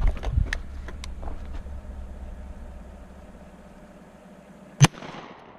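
A single shotgun shot at a grouse, about five seconds in, with a short echo fading after it. Before the shot, a truck engine idles low under a few light clicks.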